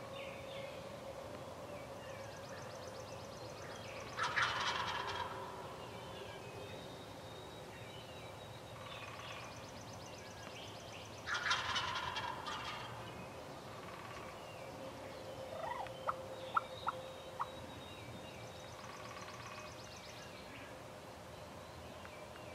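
Eastern wild turkey gobblers gobbling: two loud gobbles, about four and eleven seconds in, with fainter gobbles between them. A few short sharp notes come about two-thirds of the way through.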